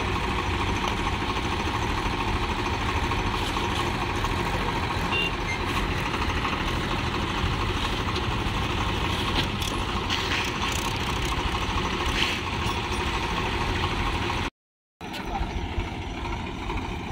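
Swaraj 735 FE tractor's three-cylinder diesel engine running steadily. Near the end the sound drops out for a moment, and another tractor's diesel engine runs on after it.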